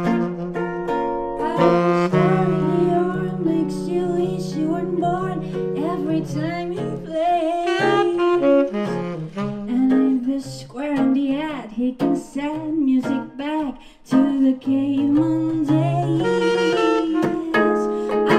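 Swing jazz played live: a saxophone solo over acoustic guitar chords.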